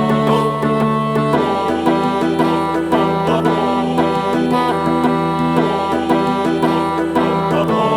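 Background music with plucked strings over sustained notes.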